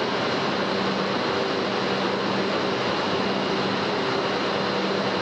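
Steady factory machinery din: an even rushing noise with a low steady hum, unbroken and without separate knocks or impacts.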